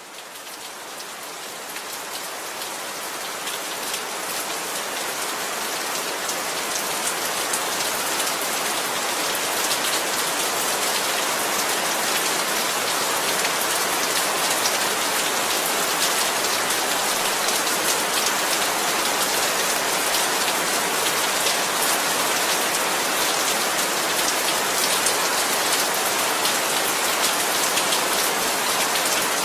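Heavy rain falling steadily, a dense hiss with many separate drop hits. It grows louder over the first several seconds, then holds even.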